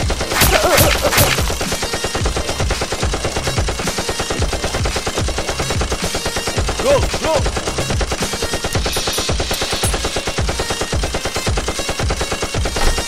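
Rapid, unbroken automatic gunfire: a machine-gun sound effect laid over a Nerf blaster fight.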